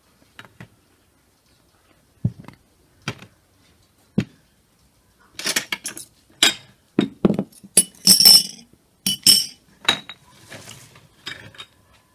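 Glass jars, glass lids and glass dessert bowls knocking against a metal tray and long metal spoons as they are set out: scattered clinks at first, then a dense run of clinking about halfway through, with the glass ringing briefly near the end.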